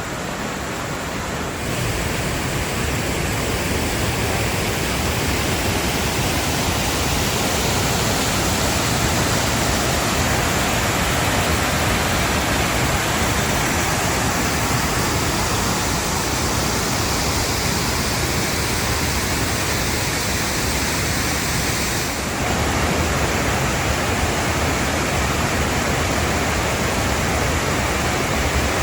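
Waterfall at close range: a loud, steady rush of falling water, shifting slightly in level and tone about two seconds in and again about 22 seconds in.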